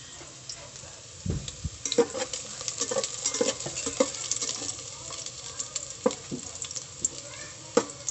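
Chopped garlic frying in hot cooking oil in a pot, with a steady sizzle. A utensil stirs it, scraping and knocking against the pot many times from about two seconds in, after a low bump just after a second in.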